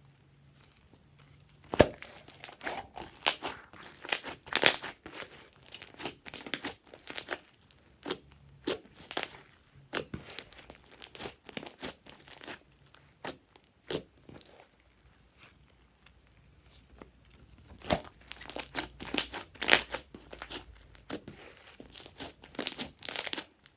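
Glossy slime being squished and stretched by hand, giving runs of sharp crackling pops and clicks as air pockets burst, with a short pause in the middle.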